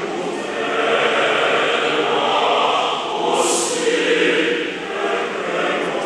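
A choir singing, with two sharp sibilant bursts sung together: one about halfway through and one at the very end.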